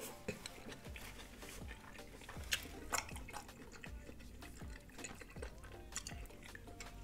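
Close-miked chewing of buttery lobster tail meat: soft wet mouth sounds with scattered small clicks.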